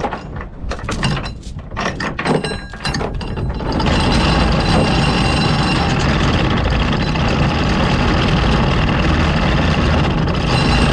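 Motor boat running under way: the engine's steady drone with wind and water noise, loud and even from about four seconds in. Before that, a few seconds of irregular knocks and clatter.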